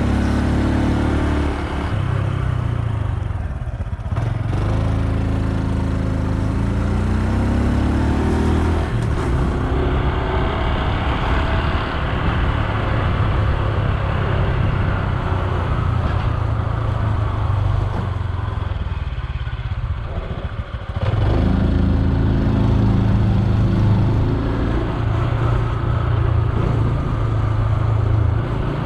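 Honda Super Cub C125's single-cylinder four-stroke engine running under way, heard from the bike itself: the pitch rises as it accelerates through the gears near the start and again a few seconds later. It eases off briefly about two-thirds of the way through, then runs on steadily.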